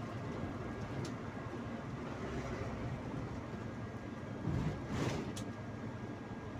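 Steady engine and road noise of a sleeper coach on the move, heard from inside the cab. A brief louder whoosh comes about four and a half seconds in.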